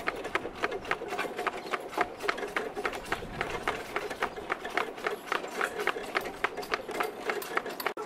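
Horse walking, its hooves clip-clopping in a steady stream of sharp strikes, several a second.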